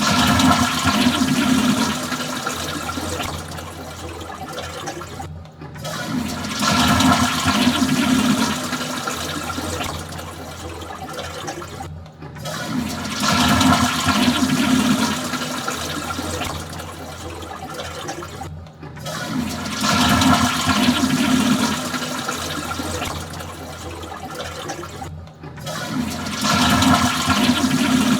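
Toilet flushing five times over, about every six and a half seconds: each flush is a loud rush of water for about two seconds that eases into quieter running water, with a brief silence before the next.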